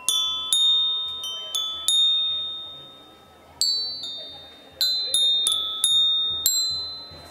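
Background music: a melody of bell-like struck notes, each ringing out and fading, played in a string of quick notes, pausing briefly after about two seconds, then resuming.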